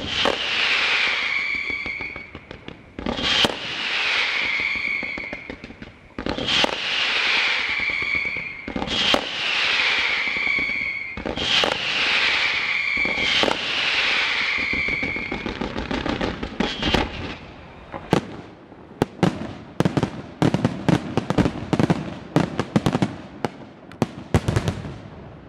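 Fireworks display: about six bangs, each followed by a loud whistle that falls in pitch, then, about two-thirds of the way through, a fast run of sharp bangs and crackles.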